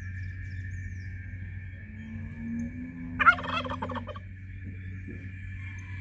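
Domestic turkey tom gobbling once, a rapid rattling call about a second long, a little past the middle, over a steady high-pitched drone.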